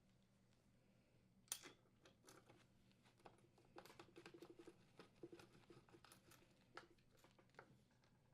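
Faint clicks and light taps of a screwdriver and the oven door's metal parts being worked by hand. There is one sharper click about a second and a half in, a quick run of small ticks around four to five seconds in, and a couple of single clicks near the end.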